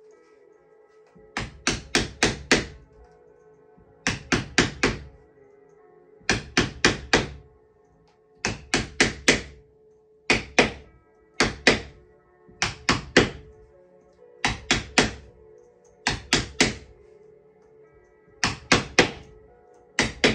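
A wooden mallet tapping a caning wedge to drive pressed-cane webbing down into the chair seat's groove. The knocks come in quick runs of three to five, about one run every second or two, starting about a second in. Soft background music with steady held tones runs underneath.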